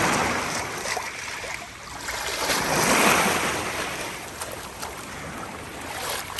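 Sea waves surging and washing, swelling loudest at the start and again about three seconds in.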